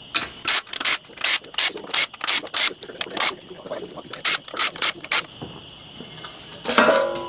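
Cordless impact driver backing out the oil pan bolts of a 2.3L EcoBoost engine in a dozen or so short, sharp bursts. Near the end, a louder scrape and clunk as the oil pan is worked loose and lifted off the block.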